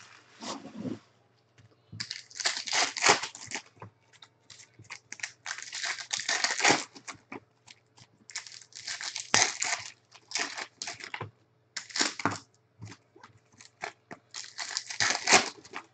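Plastic baseball card pack wrappers crinkling and being torn open, in repeated short bursts of rustling with brief quiet gaps between them.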